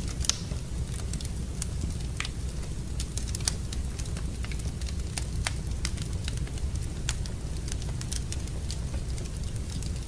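Wood fire crackling in a fireplace: irregular sharp snaps and pops of varying loudness over a steady low rumble.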